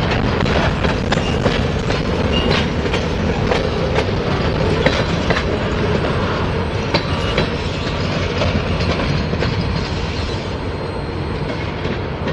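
Freight train of covered hopper cars rolling past close by: a steady rumble of steel wheels on rail with repeated clicks over the joints. It eases off slightly near the end as the last car goes by and the train draws away.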